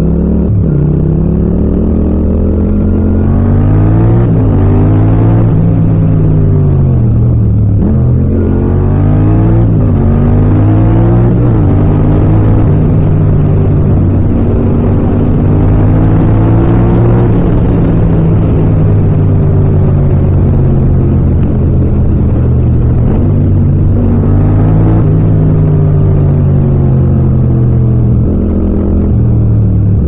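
Yamaha MT-07's parallel-twin engine under way: it revs up and drops back again and again as the rider accelerates through the gears and rolls off, with a steadier cruising stretch in the middle.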